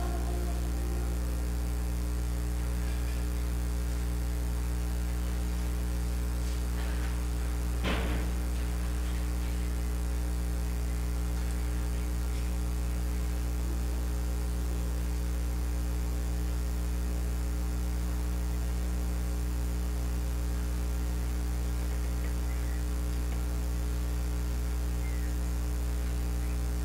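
Steady electrical mains hum with its evenly spaced overtones, under the last held note of a sung song in the first second. A single sharp knock about eight seconds in.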